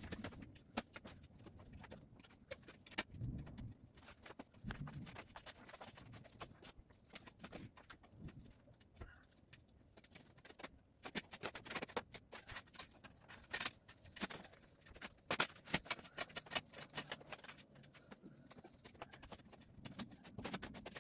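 Curtain being hung: light, irregular clicks and taps of curtain hooks and rail hardware, with soft fabric rustling between them.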